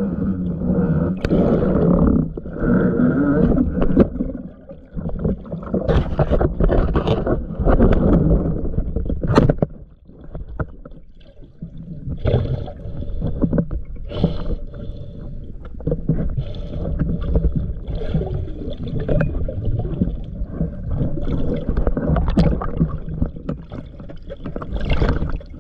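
Muffled water noise heard by a camera held underwater: sloshing and gurgling with a low rumble and irregular knocks and clicks.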